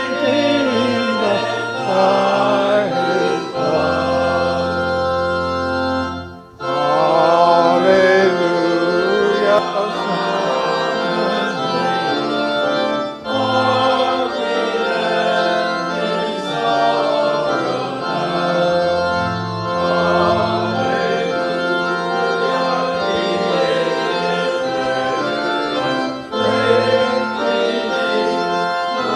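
Church organ playing a hymn in a steady, held-note style, with the congregation singing along: the recessional hymn at the close of the service. The music breaks off briefly about six seconds in, then resumes.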